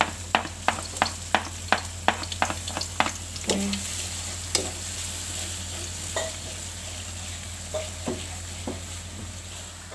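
Chopped shallots and garlic sizzling in oil in a wok while a spatula scrapes and taps against the pan. The taps come quickly, about three a second, for the first three and a half seconds, then only now and then.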